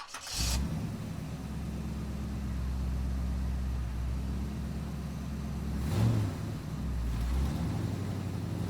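Car engine running steadily, with a brief change in pitch about six seconds in and a short hiss at the very start.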